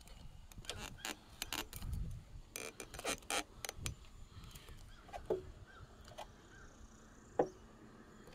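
Clicks and knocks of a person moving on an aluminium ladder and handling the old plastic gutter spout at a motorhome's roof edge: a quick run of them for about four seconds, then a few scattered ones, the loudest near the end.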